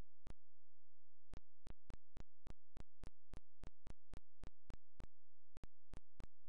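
Dead air with a steady low hum and a run of sharp, evenly spaced clicks, about three or four a second, with a short gap near the start: typical of a glitch in live-stream audio.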